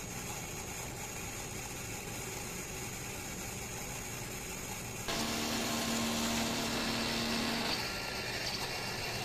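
DTF printer running its print-head cleaning cycle: a steady mechanical whir from the printer's pump and motors. About halfway through, a louder motor whir with a steady low hum cuts in suddenly, then eases back after about two and a half seconds.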